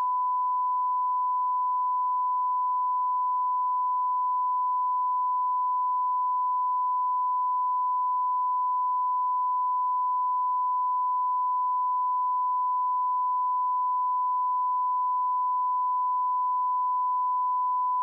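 Broadcast line-up tone with the colour bars: one steady, unbroken pure test tone, the reference signal for setting audio levels at the head of a programme.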